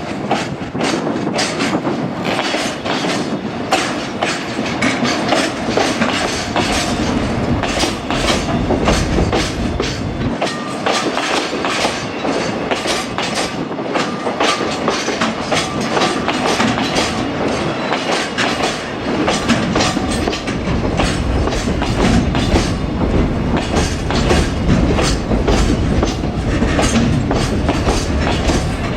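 Freight train rolling past, its wagon wheels clacking over the rail joints in a fast, continuous rhythm with a running rumble that deepens in the second half.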